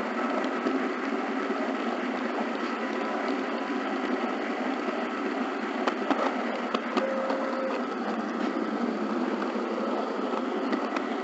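HO scale model train running along the track: a steady mechanical whirr of the small motor and gearing with the wheels rolling on the rails, and a few sharp clicks about six to seven seconds in.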